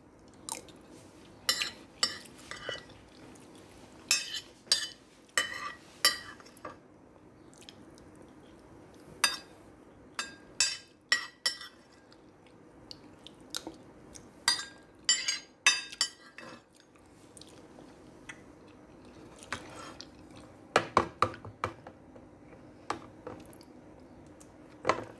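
Metal spoon clinking and scraping against a ceramic plate: sharp clicks in irregular bunches, several a second, with pauses between.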